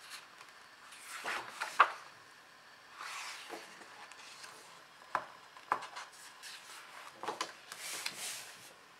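Pages of a hardcover picture book in a clear plastic cover being turned and pressed flat by hand: several bouts of paper rustling, with a few sharp flaps and taps as the pages land.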